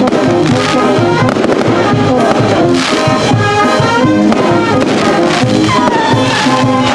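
Brass-band music playing steadily, with fireworks going off again and again over it.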